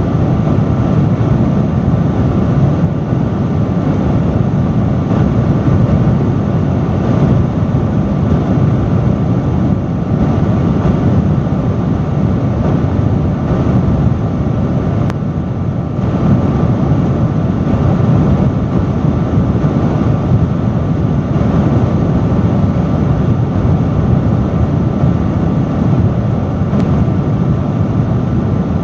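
Loud industrial fan running at a steady speed, with a constant rush of air and a faint steady hum through it.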